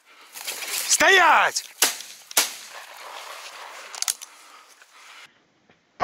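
Hunting shotgun fired twice in quick succession, about half a second apart. The shots come just after a loud cry whose pitch rises and then falls, which is the loudest sound here.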